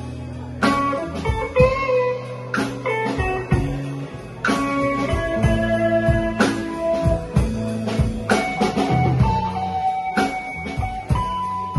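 Live band playing a slow blues ballad instrumental: electric guitars over bass and drums, with held melody notes that bend in pitch and a drum hit about once a second.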